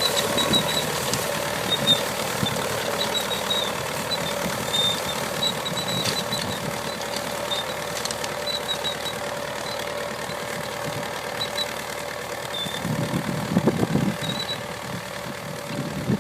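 Nuffield 10/60 tractor engine running steadily while it pulls a potato spinner lifting potatoes. Short high chirps come and go over it, and the engine grows louder for a moment near the end.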